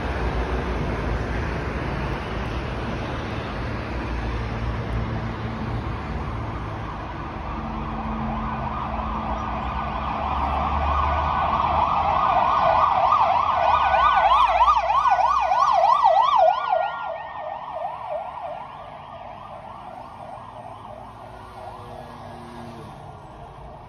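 Emergency vehicle siren in a fast up-and-down yelp, about three or four swoops a second. It grows louder over several seconds and cuts off sharply about two-thirds of the way through, over the rumble of street traffic.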